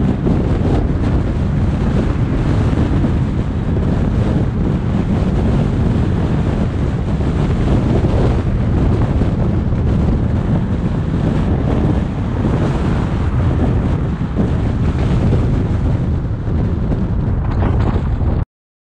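Wind buffeting a GoPro's microphone over the steady rumble of a car driving along a city road. It cuts off suddenly near the end.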